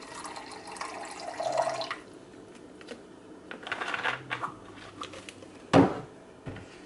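Vinegar poured from a measuring cup over cooked meat in a glass baking dish: a liquid trickle for the first two seconds and again briefly around four seconds in. A sharp knock near the end.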